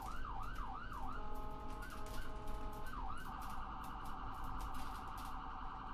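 Electronic siren cycling through its tones. It starts with a fast yelp of rising and falling sweeps about three a second, then after about a second switches to a rapid warble that holds to the end.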